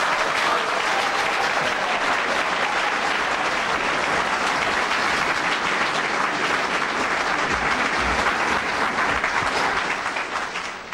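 Audience applauding steadily, fading out at the end.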